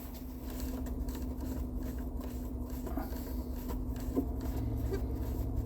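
A steady low hum, with faint rubbing and a few light taps as the climate-control buttons are wiped dry after an alcohol cleaning.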